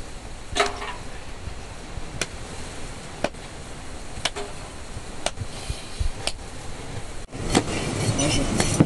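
Sharp knocks about once a second, some ringing briefly. After a brief drop-out about seven seconds in, they give way to a louder, busier clatter.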